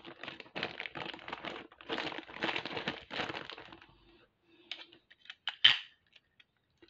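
Clear plastic bag of glass seed beads crinkling as it is handled, for about three and a half seconds. Then come a few light plastic clicks and taps, one of them sharper, about two seconds later.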